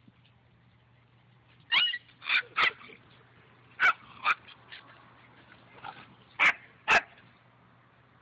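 Puppies yipping in play: short, high-pitched barks, about seven in all, coming in quick pairs and clusters.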